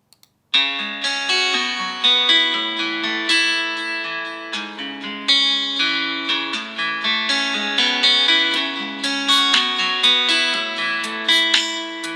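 A Xiaomi POCO F2 Pro ringtone playing: a plucked-guitar melody of quick repeated notes. It starts about half a second in, just after a couple of faint clicks.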